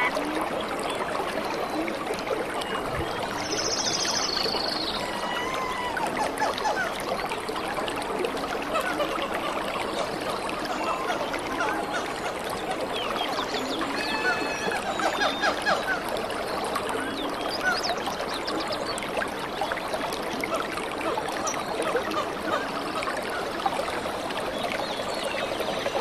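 Steady running-water ambience, like a trickling stream, with many short chirping calls scattered through it.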